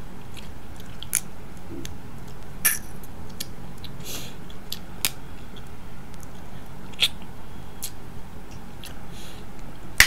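Snow crab leg shells cracking and snapping as they are broken apart by hand, sharp cracks every second or two with the loudest near the end, between sounds of chewing.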